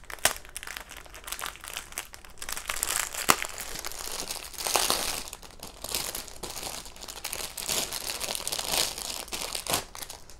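Small plastic bags of resin diamond-painting drills crinkling and rustling as they are gathered up and handled, with a few sharper clicks among the rustle.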